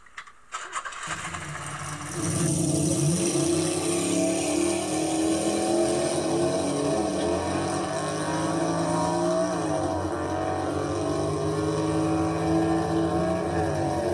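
Car engine running, coming in about a second in and then holding steady, with a few slight rises in pitch.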